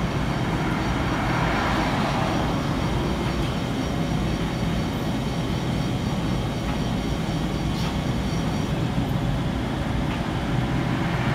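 Coin-operated laundromat washing machines running, a steady low rumble with a faint hum above it.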